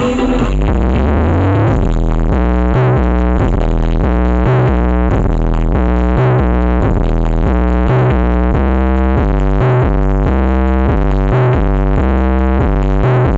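Loud electronic dance music with a heavy synth bass line stepping through short repeated notes, played through the BMS Audio sound system at a sound check. The bass climbs in steps in the first couple of seconds, then settles into a steady repeating riff.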